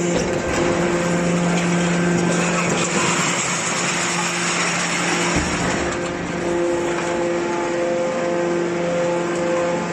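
Homemade aluminum can baler's power unit running with a steady hum, with a louder hissing, grinding stretch in the middle.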